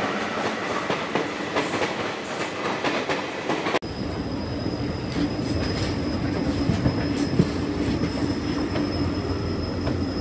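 Indian Railways passenger train with blue coaches passing at speed, the wheels clattering over the track. About four seconds in it cuts to a train rumbling round a curve, with a steady high-pitched wheel squeal.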